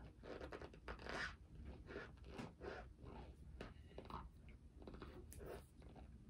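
Chewing a mouthful of dry corn starch powder close to the microphone: a run of faint, irregular short crunches.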